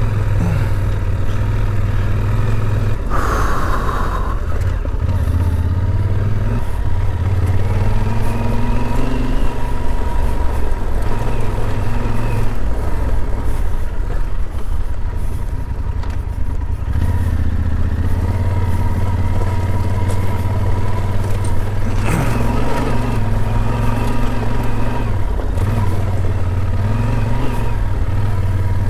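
Yamaha Super Ténéré adventure motorcycle under way on a dirt track. Its parallel-twin engine runs steadily, and the engine note shifts a few times with throttle and gear changes.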